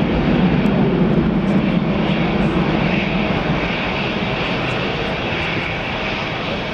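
Jet airliner engines running, a steady rumble with a high whine, slowly growing quieter.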